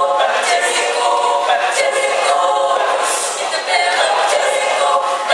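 Mixed choir of women's and men's voices singing in parts, moving from chord to chord.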